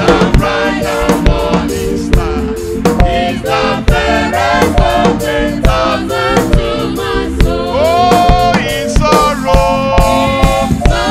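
Live gospel praise music: a man singing lead with a choir, over a drum kit keeping a steady beat. A rising, held sung note comes about eight seconds in.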